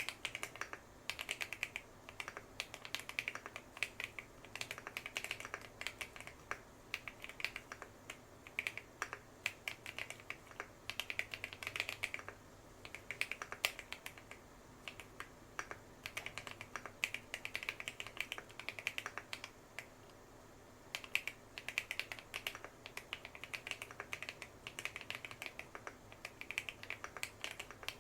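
Typing on a tape-modded custom 65% mechanical keyboard with PBT cherry-profile keycaps: fast runs of keystroke clacks, with a short pause about twenty seconds in.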